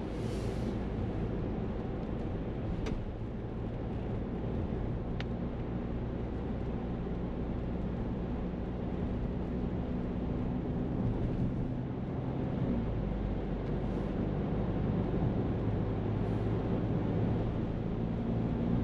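Car heard from inside the cabin while driving: steady engine hum and tyre road noise. The engine note changes about two-thirds of the way through.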